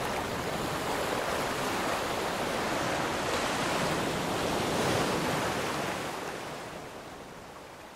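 Sea surf foaming and washing up over the sand at the water's edge, a steady rushing wash that fades out over the last two seconds.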